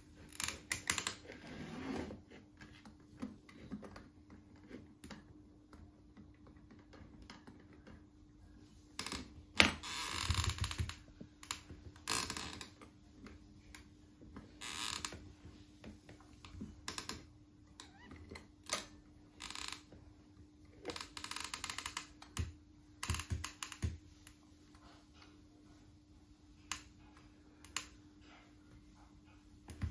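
Handling noises from a brass-rod lamp frame holding glass tube bulbs: scattered light clicks, taps and short scrapes of metal and glass against a wooden floor as it is picked up and turned by its brass sockets, with one sharper knock about ten seconds in.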